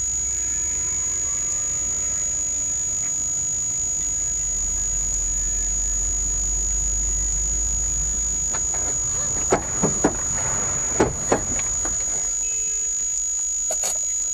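In-car dashcam sound of a car driving: steady road and engine noise with a constant high-pitched whine. About nine to twelve seconds in comes a cluster of sharp bangs and knocks, the impacts of a traffic collision, with one more knock near the end.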